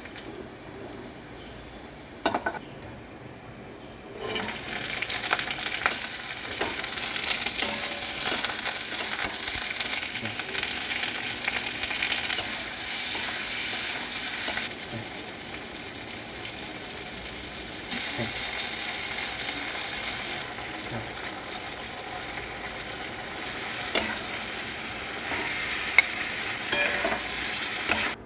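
Chilli paneer sizzling as it is stir-fried in a pan, with a few sharp knocks of the utensil against the pan. The sizzle gets much louder about four seconds in and drops and rises in steps after that.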